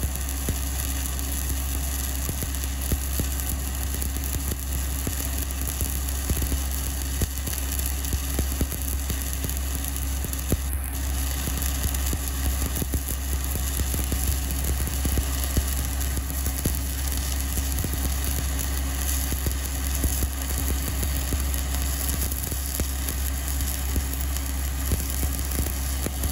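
Stick-welding arc of a 7018 electrode burning on a vertical joint: a steady crackling hiss, with a steady low hum underneath.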